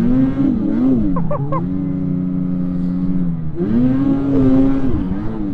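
Snowmobile engine under throttle in deep snow, its pitch wavering, then holding steady for about two seconds before rising again and falling off near the end.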